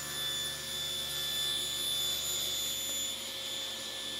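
Powermatic table saw running at speed with a steady high whine, its spinning blade being raised up through a new half-inch MDF zero-clearance insert and cutting its own slot in it.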